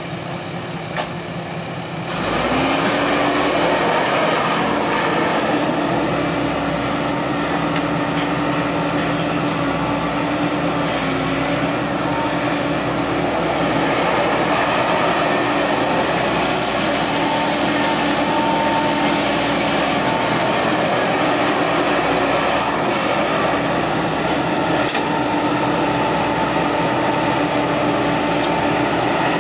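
Heavy diesel engine of earthmoving machinery running steadily, stepping up to a louder, higher-powered drone about two seconds in and holding there.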